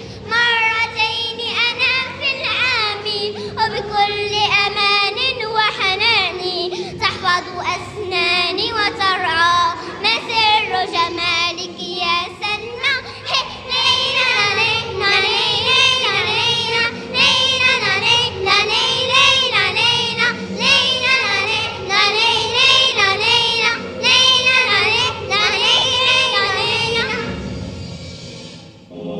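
A group of young girls singing a children's song together; the singing fades out near the end.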